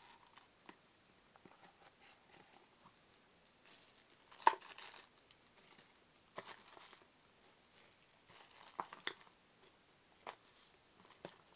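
Quiet handling of a cardboard phone box and its clear plastic accessory bags: scattered taps and clicks with short bursts of plastic crinkling, the sharpest click about four and a half seconds in.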